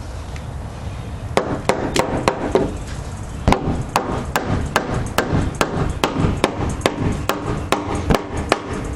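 Hammer striking wood, a steady run of sharp blows about two to three a second, starting about a second and a half in.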